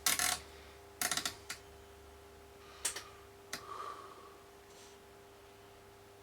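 Small clicks and light rattles from hand work on a CB radio on the bench: a quick cluster at the start, another about a second in, then single clicks spaced out, over a faint steady hum.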